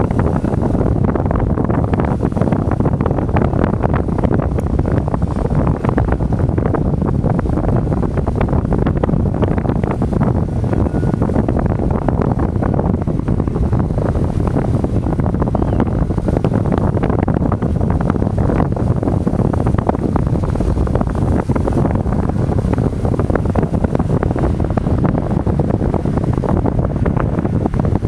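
Strong wind buffeting the microphone in a steady low rush, with choppy sea waves washing and breaking over rocks.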